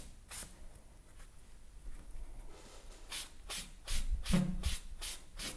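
A sponge rubbed back and forth across watercolour paper in about eight quick scratchy strokes in the second half, lifting dried paint off the sheet.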